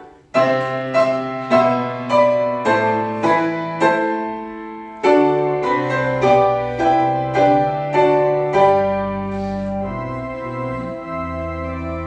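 Piano playing a run of struck chords about twice a second, each one ringing and fading. A fresh phrase starts about five seconds in, and sustained chords fill the last few seconds.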